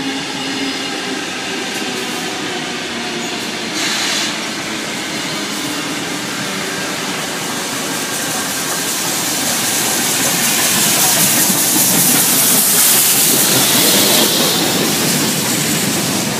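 Steam locomotive 3642 approaching and passing close, with wheels clattering on the rails, over a steady whine from an electric suburban train alongside. A loud hiss of steam builds from about ten seconds in as the engine draws level.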